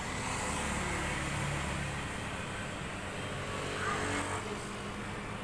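Steady hum of road traffic running without a break.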